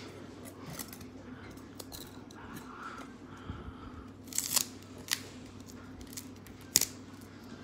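Trading cards and foil pack wrappers being handled: faint rustling with a few sharp snips or clicks, the loudest about four and a half and just under seven seconds in.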